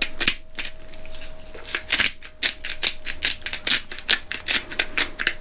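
Hand salt grinder being twisted, crunching Himalayan pink rock salt in a quick series of clicking, grating strokes, about four a second.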